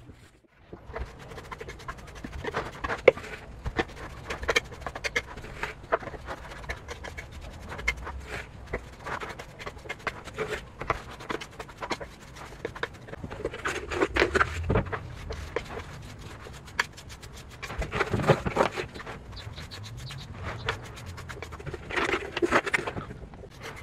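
Small trowel scraping and dabbing wet cement onto the inside wall of a plastic pot: irregular short scrapes and taps, in louder bursts now and then.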